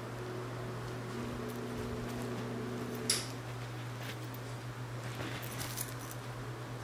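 A feathered ring cat toy rattling as a kitten pounces on it and bats it around on a bed: one short, sharp rattle about three seconds in and a few quick light clicks near the end, over a steady low hum.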